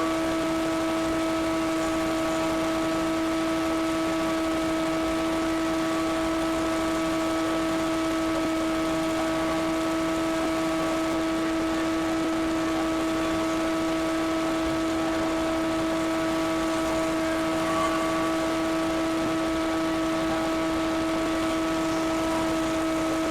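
Scag Windstorm stand-on commercial blower running at a steady speed, giving a constant whine over the rush of air.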